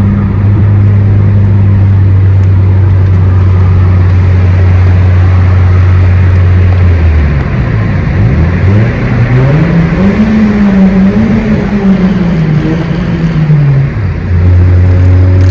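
Toyota Corolla engine heard through a newly fitted HKS aftermarket exhaust: a steady low drone, then about halfway through the pitch dips, climbs as the engine revs up, and falls away again before the steady drone returns near the end.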